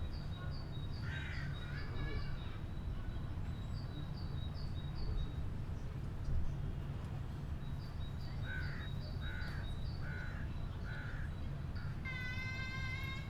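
A crow cawing: one call early, then a run of five short caws about eight seconds in. Rapid high chirping from a small bird runs throughout over a steady low hum, and a held, pitched call begins near the end.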